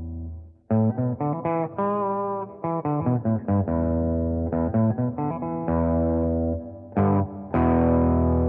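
Electric guitar played through a Custom Screamer V2, a Tube Screamer–style overdrive pedal, into an amp's clean channel. A held note fades out, then after a short gap comes a quick phrase of picked single notes with one wavering bent note. Near the end a chord is struck and left ringing.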